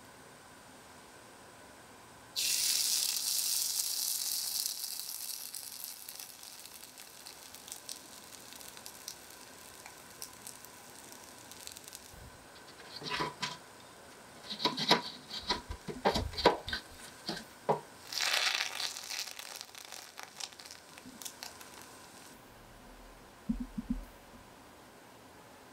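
Pancake batter sizzling in a hot miniature cast-iron skillet: a hiss that starts suddenly a few seconds in and fades away slowly. Midway come a run of sharp clicks and taps of small utensils, then a second, shorter burst of sizzling that stops abruptly, and two light knocks near the end.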